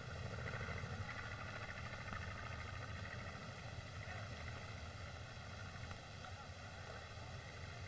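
Steady hiss and hum of an old optical film soundtrack, with no distinct sound events; the painting brush and bucket make no audible sound.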